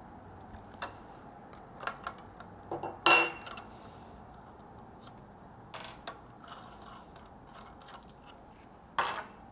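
Scattered light metallic clicks and clinks from a CNC router's collet nut and wrench as the nut is loosened to release a 6 mm end mill from the spindle; the loudest come about three seconds in and near the end.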